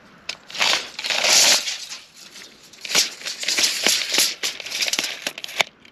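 Steel tape measure blade rattling and clicking as it is drawn back into its case, in two stretches with a sharp click near the end.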